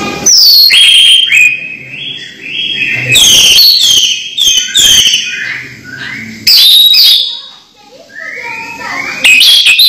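Caged orange-headed thrush singing a loud, varied song of clear whistled notes, many sliding down in pitch, delivered in quick clusters with a softer stretch shortly before the end.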